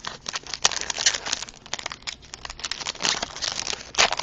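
Plastic wrapper of a trading-card pack crinkling and tearing as it is handled and opened, a dense run of irregular crackles.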